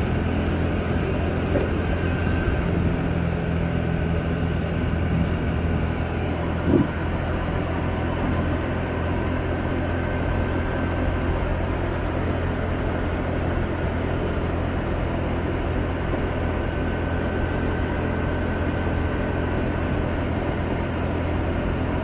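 Motorbike engine running steadily at cruising speed, with road and wind noise, heard from the rider's handlebars. A brief louder knock about seven seconds in.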